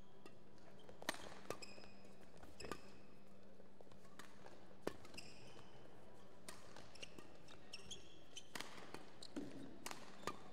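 Badminton rally: about eight sharp hits of rackets on the shuttlecock, a second or two apart, with short squeaks of court shoes on the floor mat.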